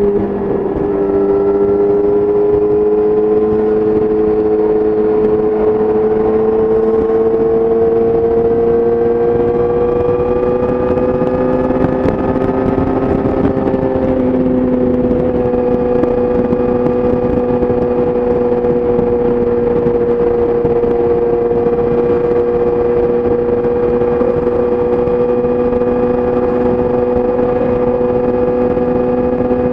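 Yamaha YZF-R6 inline-four sport bike engine through an Akrapovic exhaust, running at steady highway cruise, heard from the rider's seat with wind noise. Its pitch dips just after the start, climbs slowly for about fourteen seconds, eases slightly, then holds steady.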